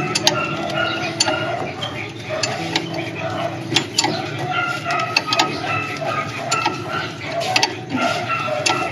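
Hand tools clinking against metal while a car's shock absorber mounts are being unbolted: irregular sharp metallic clicks and knocks.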